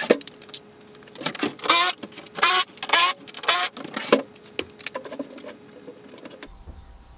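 The heavy plastic sled tub of an Otter X-Over ice-fishing shanty being shoved and turned on a hardwood floor. It scrapes and squeaks against the boards in five or six loud bursts, then goes quiet.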